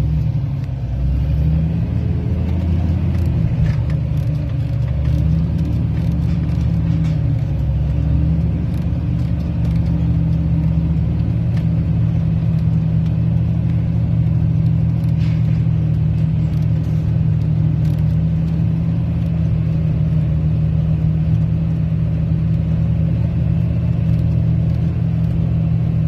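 Tractor engine running steadily under load while pulling a nine-section field harrow.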